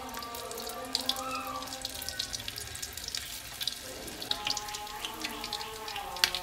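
Corn fritters deep-frying in a wok of hot oil: a steady crackle and sputter of bubbling oil, with one sharper click near the end.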